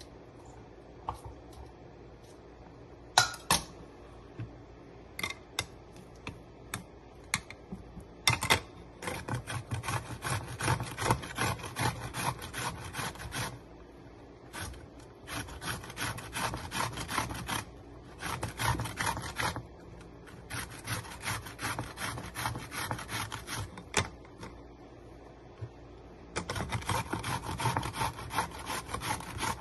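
A metal utensil stirring yogurt-and-cucumber raita in a glass bowl. A few scattered taps come first, then several runs of fast scraping and clinking against the glass with short pauses between them, the last run starting near the end.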